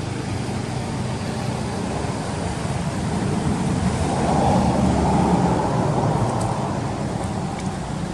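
Motor vehicle engine running as road traffic passes, a steady low hum that grows louder about four seconds in and eases off again near the end.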